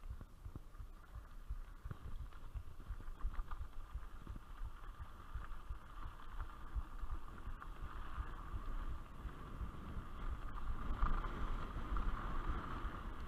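Wind buffeting the microphone of a camera riding along on a mountain bike, over a steady rushing noise of the ride that grows louder in the second half.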